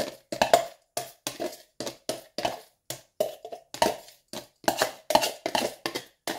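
Upturned plastic blender jug knocked and tapped repeatedly to shake thick blended dipping sauce out into a bowl: a quick run of sharp knocks, about three a second.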